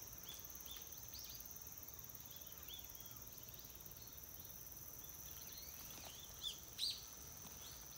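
Small birds chirping in short, repeated calls over a steady, high insect drone, with two louder chirps near the end.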